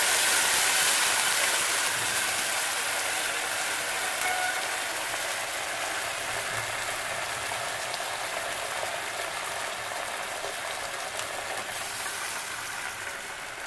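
Milk and hot water sizzling and bubbling in a pot of rice fried in ghee and oil, a steady hiss that is loudest at first and slowly dies down as the liquid settles.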